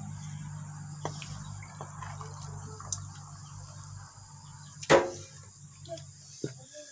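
Crickets chirring steadily over a low hum that stops near the end, with light clicks of a hand working rice on a plate. About five seconds in comes a sharp, ringing knock as a ceramic mug is lifted off the wooden table.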